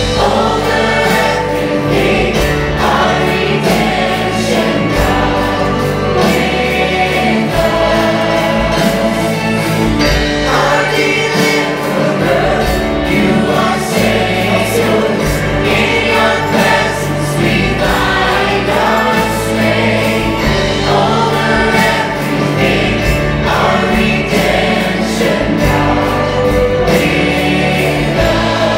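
Live Christian worship song: a male and a female vocalist singing together over strummed acoustic guitar and a steady bass, backed by a choir.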